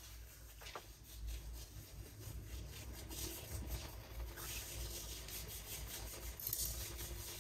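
Faint, uneven scratchy rubbing of wet hands worked together with a gritty exfoliating scrub.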